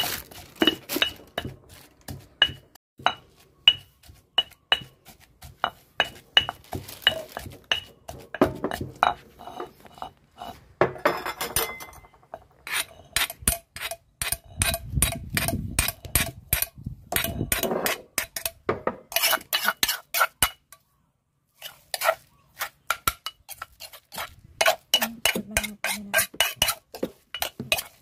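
Stone pestle knocking steadily in a granite mortar, each stroke ringing briefly, as shrimp-paste chili dip is pounded. Later a metal spoon scrapes and clinks against the stone, in quicker, denser strokes.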